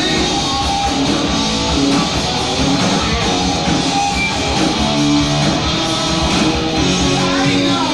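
Live heavy metal band playing, with distorted electric guitar out front over bass and drums and no singing.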